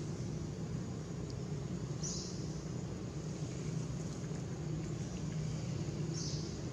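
Steady low mechanical hum, like a motor running in the distance, with two brief high chirps, one about two seconds in and one near the end.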